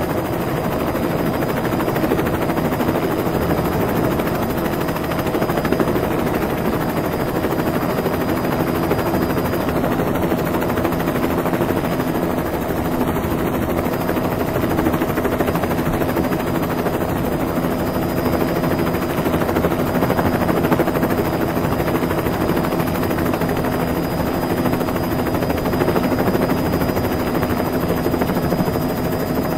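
Rotors of a rotary-wing aircraft running steadily: a continuous whirring with a few steady humming tones and no change in pitch.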